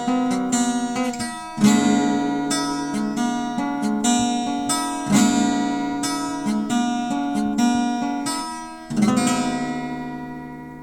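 Music of strummed acoustic guitar chords, each strum ringing out and decaying; the last chord is left to ring and fade away near the end.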